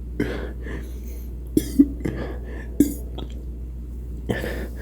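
A person's short, sudden throat sounds: three quick ones from about a second and a half to three seconds in, and a longer breathy one near the end, with breathing in between.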